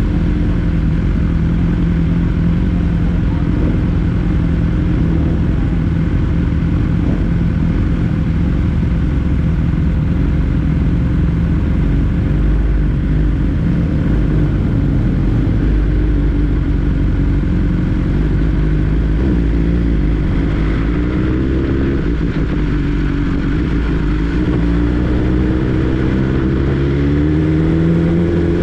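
2022 BMW S 1000 R's inline-four engine running at a steady cruise on the move. In the last third the revs drop, then climb again.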